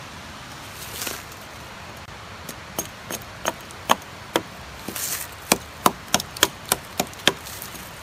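A small hatchet chopping a short stick of firewood on a fallen log: about a dozen sharp wooden knocks starting a few seconds in, coming faster, about three a second, in the second half.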